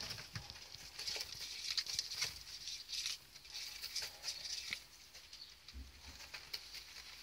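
Baby Netherland Dwarf rabbits moving about in wood shavings and hay: light, irregular rustling and crackling.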